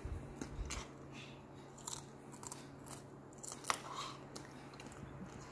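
A person chewing food close to the microphone, with scattered small clicks and smacks.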